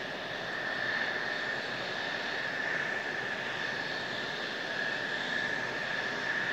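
Mitsubishi F-2 fighter's General Electric F110 turbofan running at taxi power: a steady high whine over a rushing hiss.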